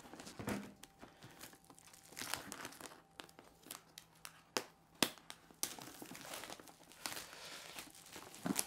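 Clear plastic shrink-wrap being torn and peeled off a camera box, crinkling, with sharp crackles and snaps; the loudest snap comes about five seconds in.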